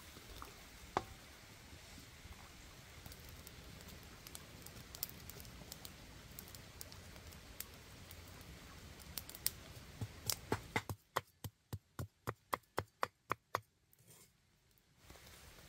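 Food being chopped: scattered single taps, then about eleven seconds in a quick, even run of about a dozen chops, four to five a second, lasting a few seconds.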